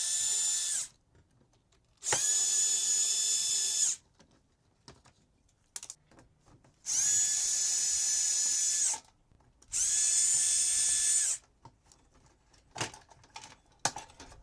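Power drill-driver running in bursts of about two seconds with a steady whine, four times over, while screws are backed out of a microwave's sheet-metal casing; a few light clicks near the end.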